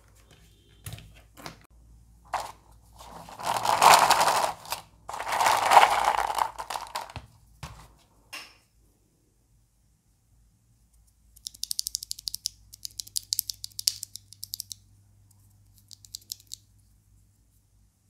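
Handling of a mechanical keyboard kit and a Gateron Milky Brown switch. Scattered clicks and two long scraping noises in the first half, then a run of rapid, fine plastic clicking in the second half as the switch is worked between the fingers.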